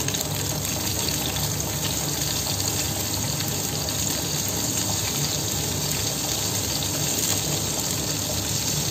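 Aubergine slices sizzling steadily in shallow oil in a steel frying pan.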